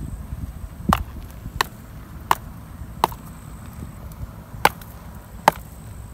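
A pair of muddy high-heeled sandals knocked against each other to shake off the caked mud: six sharp knocks, about one every two-thirds of a second, with a longer pause midway.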